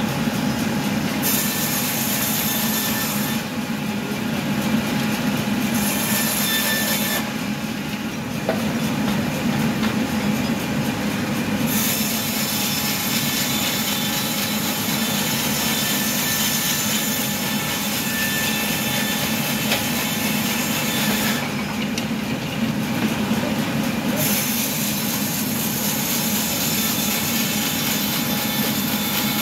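Horizontal bandsaw mill running and sawing through a log: a steady machine hum with a hissing cutting noise over it. The high hiss drops away three times for a few seconds.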